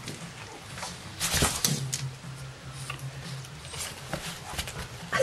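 Two Boston terriers, an adult and a puppy, moving and sniffing at each other on a cloth sheet: soft rustling, snuffling and small clicks, with a louder rustle about a second in, over a steady low hum.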